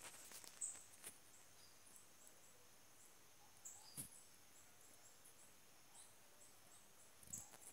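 Near silence, with a few faint clicks and rustles of a picture book and phone being handled as a page is turned, the loudest near the start and about four seconds in, over a faint steady high hiss.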